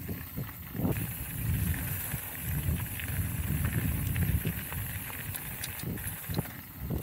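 Mountain bike being ridden over a dirt trail: a heavy, uneven rumble of wind buffeting on the camera's microphone mixed with tyre noise, with scattered clicks and rattles from the bike over bumps.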